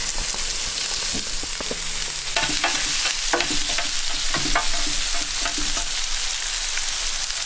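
Zucchini and yellow squash sizzling in hot oil on a Blackstone flat-top griddle, a steady frying hiss. Metal tongs click and clink against the steel surface several times as the spears are laid down.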